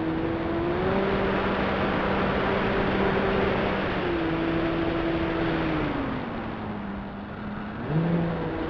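Electric motor and propeller of a Joysway J3 Cub RC plane, heard from its onboard camera, droning steadily under a rush of wind. About six seconds in the pitch slides down and the sound eases as the throttle is cut back, then near the end the pitch jumps back up in a surge as power is added.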